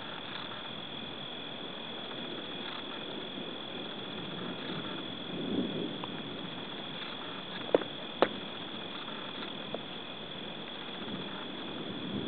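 A steady chorus of night insects, a continuous high trill. Two sharp clicks half a second apart sound about eight seconds in.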